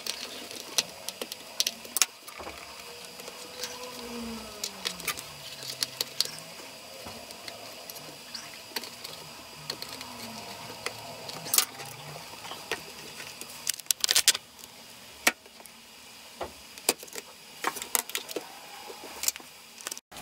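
Irregular small clicks and taps of a screwdriver on the tiny hinge screws of a ThinkPad T440 and of hands working the metal hinge and plastic chassis, as the screws are driven back in.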